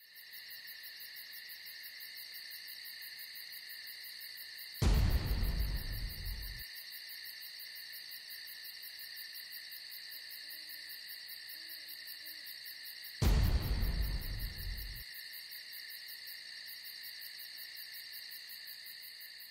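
Night ambience: a steady, high-pitched chorus of crickets, broken twice by a sudden deep boom that fades over a second or two, the booms about eight seconds apart. A faint owl hoot comes about halfway through.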